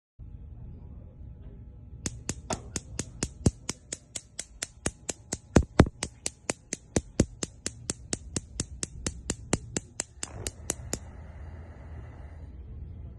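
Gas range burner spark ignitors clicking in a steady rhythm, about four or five clicks a second, for around nine seconds; this is the all-spark ignition, in which the igniters spark together. A soft hiss rises shortly before the clicking stops.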